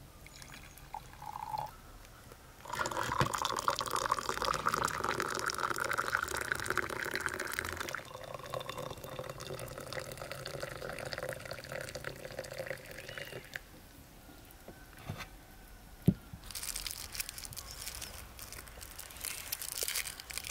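Tea poured from a teapot and hot water run from a samovar's tap into cups, the pitch of the stream rising as each cup fills. A sharp clink comes about 16 seconds in, then the crinkle of a candy wrapper being opened near the end.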